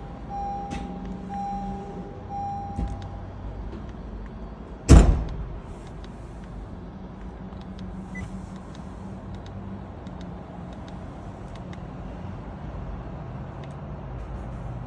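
A car's dashboard chime beeps in a quick even run, about two a second, during an oil-life reminder reset, then stops. About five seconds in comes one loud slam, which is a car door or hood being shut. A steady low hum sits underneath throughout.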